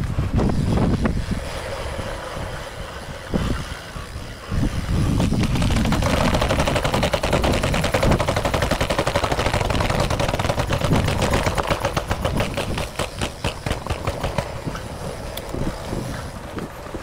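Mountain bike rattling and clattering as it rolls down a stone-paved path and steps, with a dense run of rapid clicks and knocks through the middle, over wind rumbling on the microphone.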